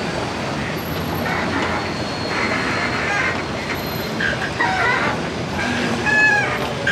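Busy river-ferry pier: the steady running of a passenger ferry's engine and the wash of river water, with scattered voices of people around the boat.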